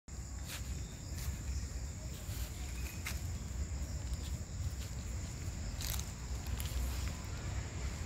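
Outdoor grazing-field ambience: a steady high-pitched insect drone over a low rumble, with several short, sharp tearing sounds scattered through it, fitting water buffalo cropping grass.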